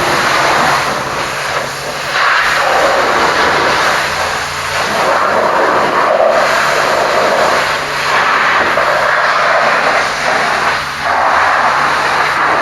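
High-pressure washer spraying water onto a truck: a loud hiss that swells and eases as the jet moves across the surfaces, over a steady low hum.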